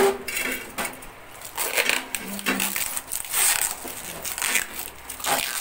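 Blue plastic protective film crinkling and rustling in irregular bursts as it is pulled off a stainless-steel gas stove. The steel stove body knocks sharply once at the start as it is shifted.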